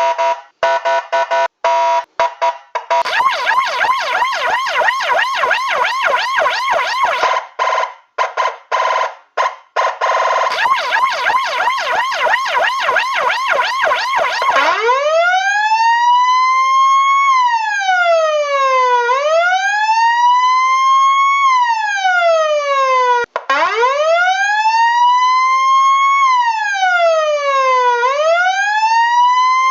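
Electronic emergency-vehicle sirens. For about the first half there is a fast, choppy warble with short breaks. Then a slow wail glides up and down in pitch every four to five seconds, cut off briefly once partway through.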